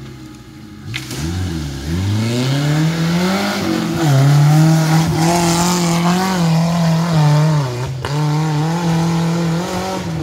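Small Suzuki 4x4 jeep's engine revving up hard about a second in, then held at high revs with wavering surges as it labours up a steep dirt climb. The revs dip briefly near the end.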